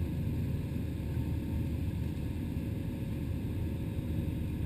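Steady low rumble of an airliner's engines and rushing air during the climb after takeoff, with a faint steady hum over it.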